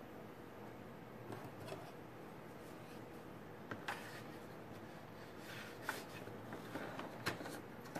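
Quiet desk handling: a pencil and a wooden ruler are scraped and set down on paper, giving short rubbing sounds and a few light clicks and taps over a faint steady hiss.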